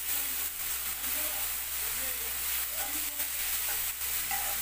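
Onions and ginger-garlic paste sizzling in hot oil in a non-stick frying pan, stirred with a metal spoon that scrapes and taps against the pan now and then. The paste is being fried until its raw smell is gone.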